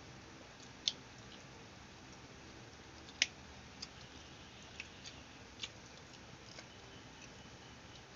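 People eating by hand: scattered short smacks and clicks of chewing and of fingers and food on plates over a low steady hiss, the sharpest one about three seconds in.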